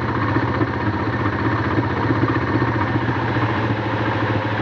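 Honda Transalp's V-twin engine idling steadily, run to heat-cure fresh paint on its exhaust header pipes.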